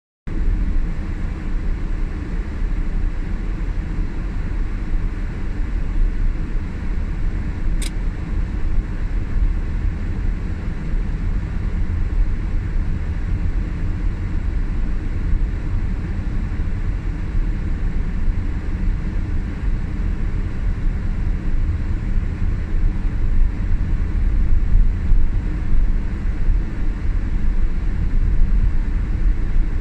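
Steady low rumble of a car driving on a snow-covered road, heard from inside the cabin: engine and tyres on packed snow. A brief faint tick about eight seconds in.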